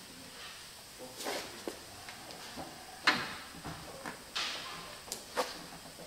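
Vinyl wrap film being handled and pulled around the front edge of a car hood: a series of short scraping swishes and a few sharp clicks, the loudest a sudden one about three seconds in.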